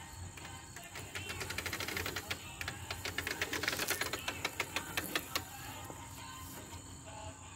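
Rapid clicking rattle from a Honda walk-behind lawn mower as it is tipped up onto its side. The clicks come quickly at first, then slow, space out and stop.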